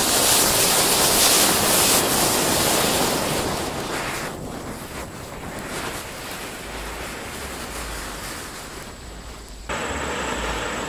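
Anar (flower-pot) fountain fireworks spraying sparks with a steady rushing hiss. The hiss is loudest for the first four seconds and then dies down. It jumps back up suddenly near the end as another fountain burns.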